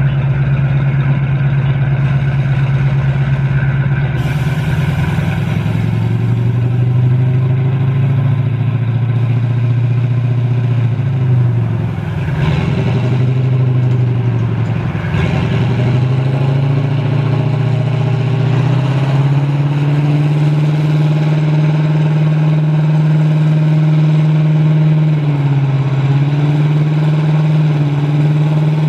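Heavy demolition machine's diesel engine running hard, its speed rising and falling under load. The pitch dips sharply twice near the middle, then holds steadier and higher.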